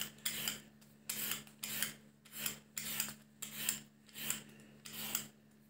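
Rhythmic rasping scrapes, about two a second, of vegetables being peeled by hand, most likely carrots.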